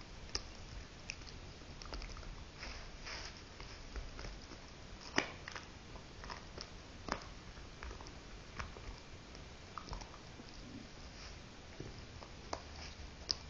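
A dog gnawing on a chew, with irregular crunching clicks and a few louder cracks as its teeth work the chew.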